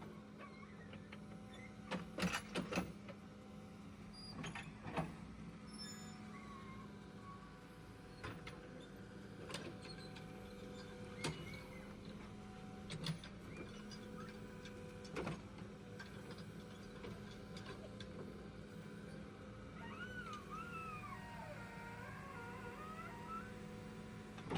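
A machine's engine running steadily with a low, even hum, with about ten sharp knocks and clanks scattered through the first two-thirds.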